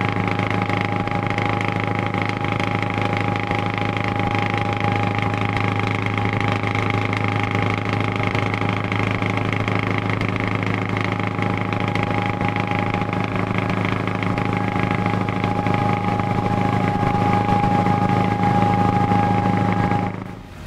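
Scania 144L 530's V8 diesel on open pipes at a steady motorway cruise: a constant deep drone with a thin steady whine above it, heard from a car running alongside. It cuts off just before the end.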